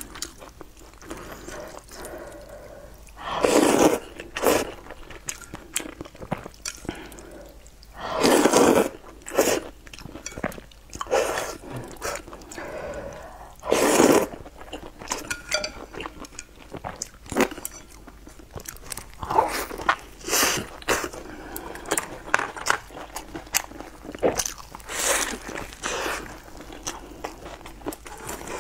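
Close-miked slurping of hot and sour sweet potato noodles, with several long, loud slurps that suck the noodles up. Between them comes a steady run of chewing, smacking and crunching.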